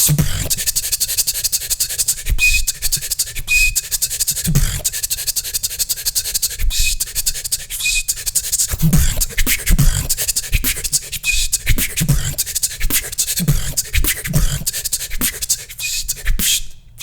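A beatboxer performing a beatbox pattern of fast hi-hat-like clicks and bass kicks, with short high beatbox whistle notes, often in pairs, dropped in every few seconds.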